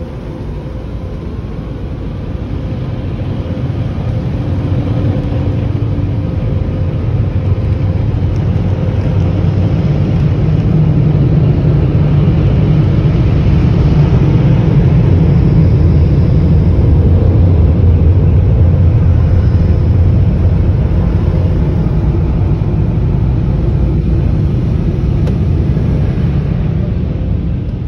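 Car wash air-dryer blowers running, heard from inside the car: a loud low rush of air that swells over the first dozen seconds and eases off near the end.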